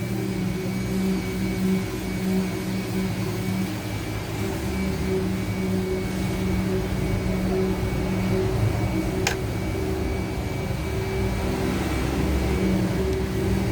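A steady mechanical drone with a low hum that swells and fades slightly, and a single sharp click about nine seconds in.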